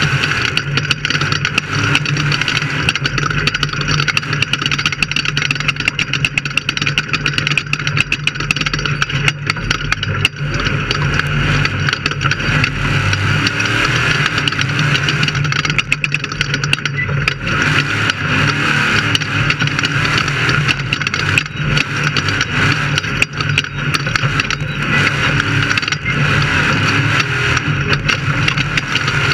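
Off-road race vehicle's engine running loud and steady, with a constant clatter of knocks and rattles over it.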